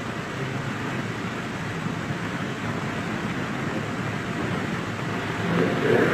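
A pause in Quran recitation filled by a steady hiss of room and recording noise, with no recited voice until a faint rise in sound near the end.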